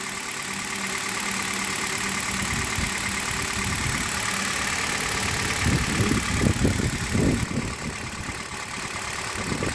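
Hyundai Solaris 1.4-litre four-cylinder petrol engine idling cold, running smoothly and evenly with no knock, which the owner credits to its Liqui Moly 5W-30 oil. An uneven lower rumbling noise is mixed in from about five and a half to seven and a half seconds in.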